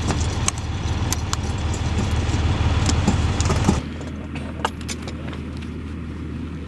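Steady low engine drone with sharp metallic clinks of hand tools on steel track links and pins. About four seconds in, the drone drops away suddenly, leaving quieter occasional clinking.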